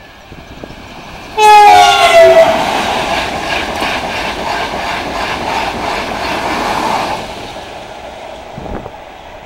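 Renfe Class 130 Alvia passenger train sounding its horn for about a second as it approaches, the horn's pitch dropping as it reaches the listener, then rushing past at speed with a rhythmic clatter of wheels over the rail joints that fades about seven seconds in.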